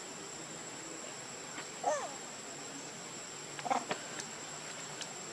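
Short squeaky animal calls, one about two seconds in and a quick cluster near four seconds, over a steady high-pitched insect drone.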